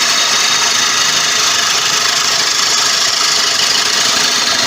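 Turning tool cutting into a large tiger wood bowl blank spinning on a Laguna 1836 lathe: a steady, loud hiss of wood being cut, which stops abruptly at the end.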